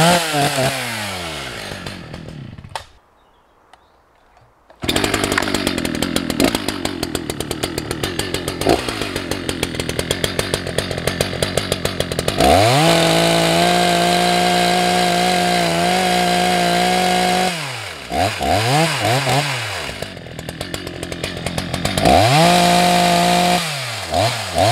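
Two-stroke chainsaw revving up and down, with a gap of near silence about three seconds in. It then idles with a rapid even putter, is held at full throttle for about five seconds, and gets several short throttle blips and another full-throttle rev near the end.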